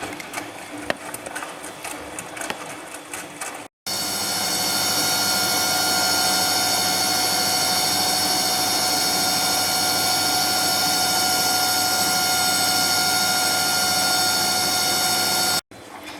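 Bosch MAXX 6 washing machine. First a few seconds of quieter running with scattered clicks, then a loud, steady high-speed spin with a whine of several steady tones, which stops abruptly near the end.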